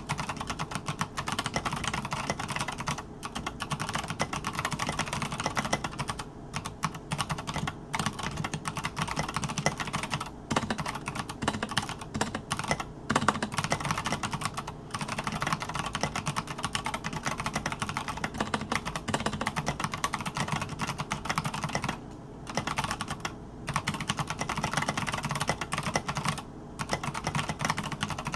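Continuous fast typing on a TKC-1800 mechanical keyboard with Kailh BOX Royal tactile switches and SA-profile keycaps: a dense stream of keystroke clacks with a few short pauses.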